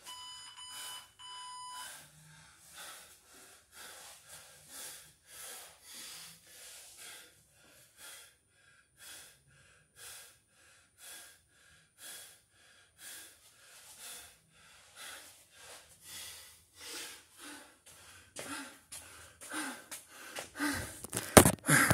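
Rapid, hard breathing and gasping of a man winded from a long set of burpees, about two breaths a second, louder near the end. In the first two seconds an electronic timer beeps three times, marking the end of the 20-minute set.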